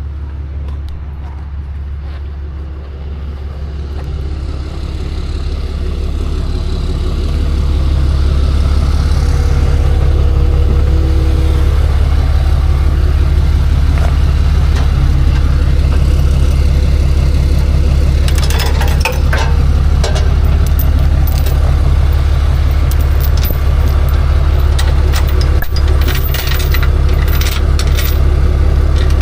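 Tow truck engine running with a steady low drone that grows louder over the first several seconds and then holds steady. Light metal clanks and rattles come in during the last third.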